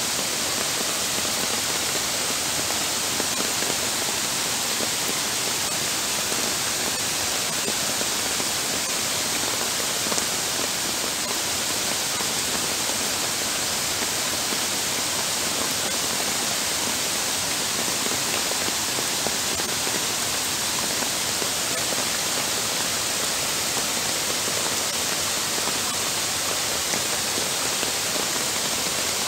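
Heavy downpour with floodwater running across a paved walking path, making a dense, steady rushing hiss with no let-up.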